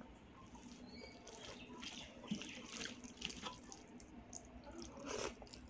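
Wet, squishy sounds of cooked rice being mashed and mixed with kadhi by hand on a metal plate, made of many small clicks and squelches, with a louder squelch about five seconds in.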